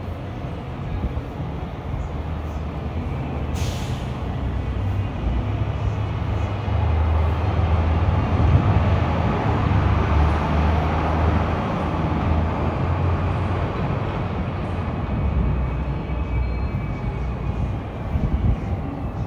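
City traffic: a low rumble of passing vehicles that swells to a peak around the middle and then eases off, with a brief hiss about three and a half seconds in.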